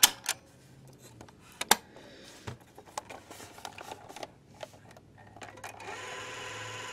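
Piano-key transport of a Panasonic RQ-309S cassette recorder: a sharp clack as a key is pressed cuts off the motor's low hum. Scattered clicks and handling knocks follow, and near the end the tape motor runs again with a steady low hum.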